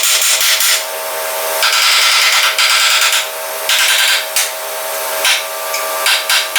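Carbon arc gouging: a loud, harsh hissing crackle of the arc and air blast gouging out cracks and old welds in a steel machine frame. It breaks off and restarts twice, over the steady hum of the engine-driven welder and air compressor.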